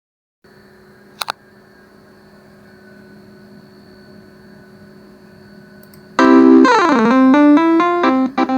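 A twelve-note telolet basuri bus horn set, driven by a MIDI module, starts playing a fast stepping melody about six seconds in. Before that there is a faint steady hum with a short click about a second in.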